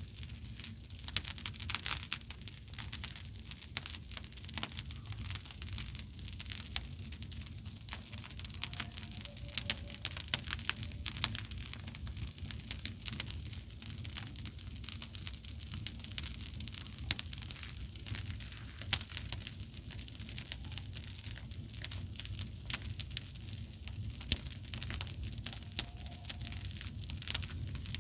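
Bonfire crackling: a dense, irregular run of small snaps over a low steady rumble.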